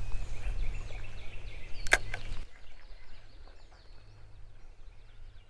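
A spinning reel casting, its line hissing off the spool, with one sharp click about two seconds in. After that it falls quieter, with faint bird chirps.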